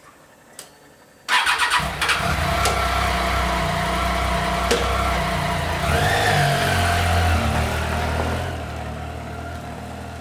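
Motorcycle engine started: two small clicks, then it cranks and catches about a second and a half in. It runs, is revved briefly around the middle, and settles back to an idle near the end.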